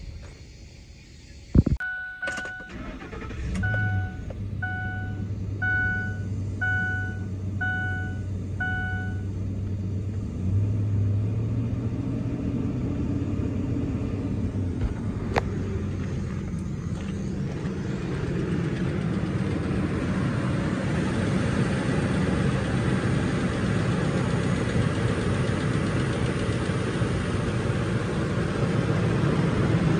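A thump, then a dashboard warning chime beeping about nine times while the 2005 Ford F-150's engine cranks and starts about 3.5 seconds in. The engine then idles steadily, sounding fuller and louder over the last dozen seconds.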